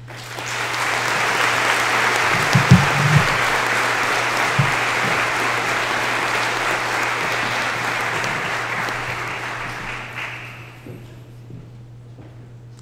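Audience applause that starts at once, holds steady and dies away after about ten seconds. A few low thumps come through a few seconds in, over a steady low hum.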